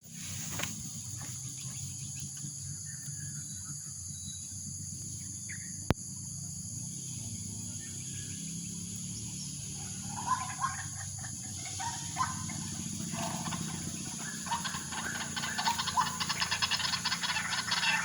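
White-breasted waterhen calling in rapid, repeated notes, starting about ten seconds in and growing louder and busier toward the end, over a steady low hum. A single sharp click about six seconds in.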